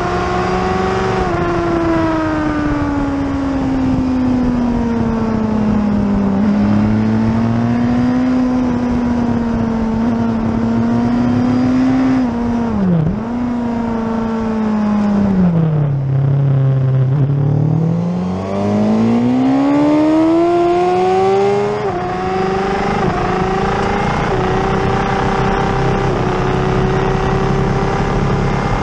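Suzuki race motorcycle's engine at racing speed with wind rush over the microphone. The revs sag through a series of corners, drop right down for a slow corner about halfway, then climb hard as the bike accelerates out, settling high onto the straight.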